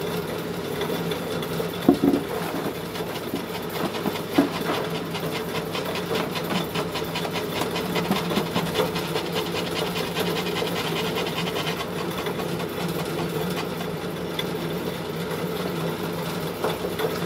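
Small animal-feed pellet mill running steadily, its motor and die rattling quickly as mixed feed is pressed through and extruded as pellets. A couple of sharp knocks about two seconds and four seconds in.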